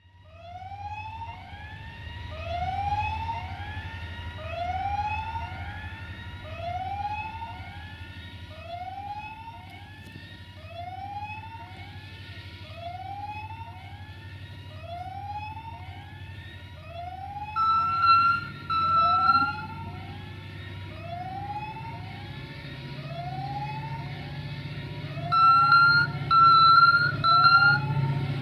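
Class 64 diesel locomotive approaching, its engine rumble growing louder, sounding its horn in two short blasts and then, about 25 seconds in, three short blasts. Under it, an electronic warning signal repeats a rising tone about once a second.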